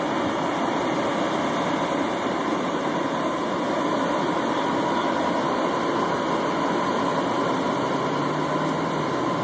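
Steady, even drone of idling vehicle engines from the police cars and fire engine standing at the scene.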